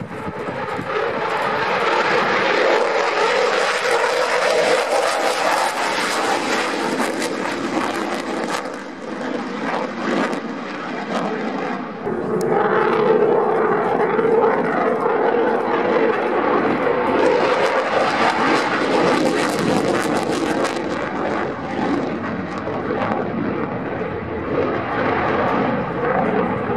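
Eurofighter Typhoon's twin EJ200 turbofans at high power in display flight: a loud, continuous jet roar with crackle. It dips for a moment about ten seconds in, then swells again as the jet passes.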